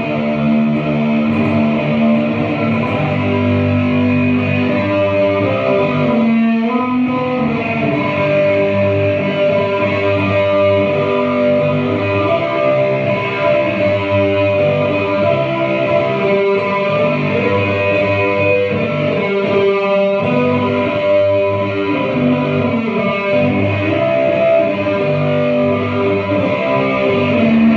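Guitar music: plucked and strummed notes and chords played continuously at a steady level.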